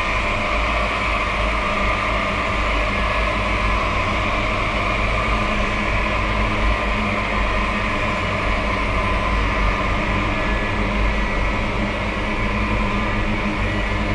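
Horror ambience drone: several steady held tones layered over a constant hiss and low rumble, unchanging throughout.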